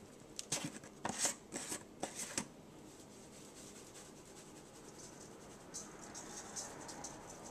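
Seasoning shaken from a shaker onto raw pork rib pieces in a stainless-steel colander: a rapid run of light ticks and rattles starting near the end. Earlier, about half a second in, comes a short flurry of sharp clicks and rattles.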